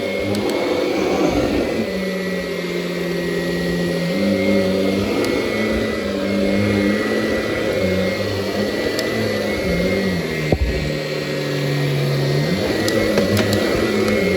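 Kirby upright vacuum cleaner running over polyester stair carpet, sucking down hard on the carpet so the nozzle latches onto it; a steady high whine over a low hum that steps up and down in pitch. A single sharp knock about ten and a half seconds in.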